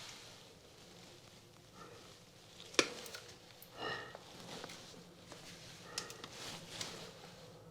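Quiet handling noises of hand work on electrical wiring in a wall socket box, with a few sharp clicks, the loudest about three seconds in, and a short squeak about a second later.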